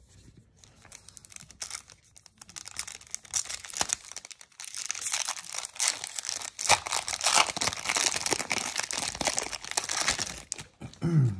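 Foil wrapper of a Topps baseball card pack being torn open by hand and crinkling. Faint crackles at first, then louder, dense crinkling from about four seconds in until near the end.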